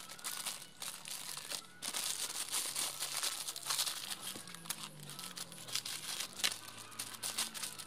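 Clear plastic packaging crinkling and rustling as it is handled and pulled open, with many small irregular crackles.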